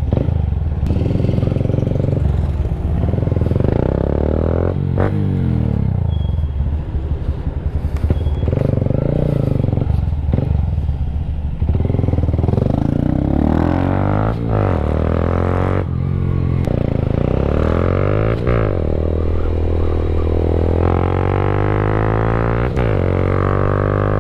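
Honda Grom's small single-cylinder motorcycle engine running under way, its pitch rising and falling again and again as it revs up and eases off.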